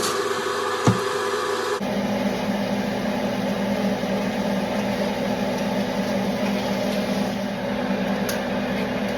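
Steady mechanical hum with a noisy hiss, like a kitchen appliance running, with a couple of sharp clicks in the first second. About two seconds in it changes abruptly to a steadier, lower hum.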